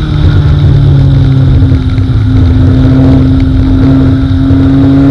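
Four-cylinder dirt-track race car engine heard loud from inside the cockpit, running at a steady pitch that climbs slowly as the car gathers speed.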